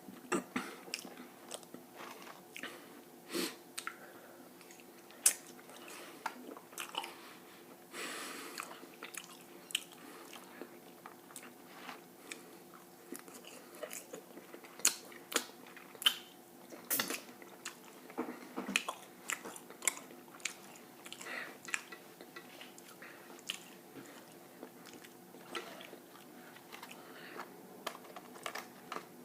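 A person chewing and biting food close to the microphone, with many irregular short mouth clicks.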